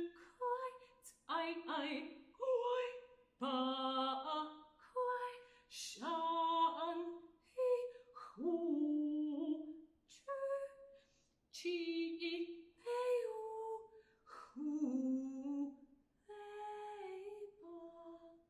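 Unaccompanied alto voice singing a contemporary art song in short separate notes and phrases, some sliding up or down in pitch, with brief pauses between them.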